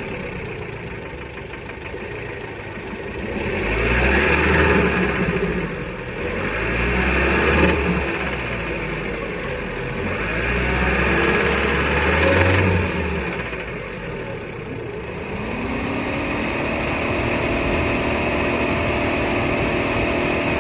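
Fiat Bravo 1.4 T-Jet turbocharged four-cylinder petrol engine running, revved in three short blips and then held at raised revs before dropping back near the end. The engine has a knocking noise that persists after maintenance.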